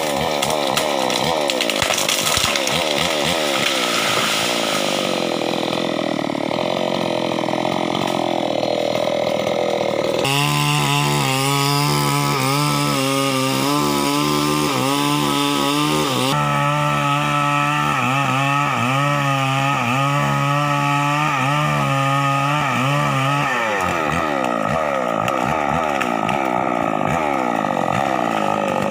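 Two-stroke chainsaw idling unevenly, then run at full throttle from about a third of the way in, its pitch wavering up and down, before dropping back to a lower idle near the end.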